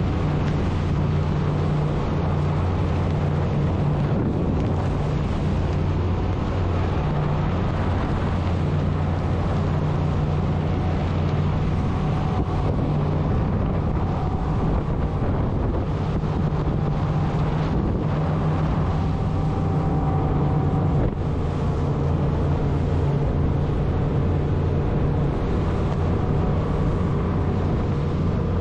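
Twin engines of a Hysucat catamaran RIB running steadily at high speed, a constant low drone, with wind buffeting the microphone.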